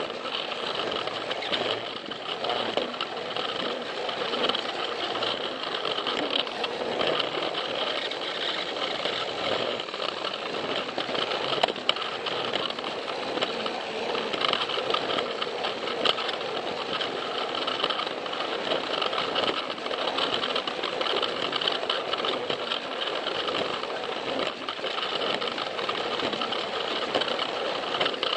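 Plarail battery-powered toy train running steadily: a continuous whirring from its small electric motor and gearbox, with a rapid clatter of plastic wheels on plastic track.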